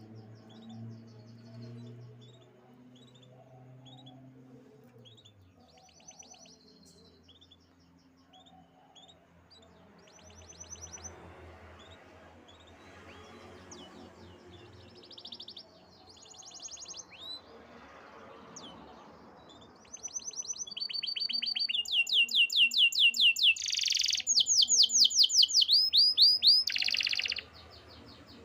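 Canary singing: scattered short chirps and brief trills, then from about twenty seconds in a loud run of fast, rapidly repeated trills that breaks off suddenly near the end.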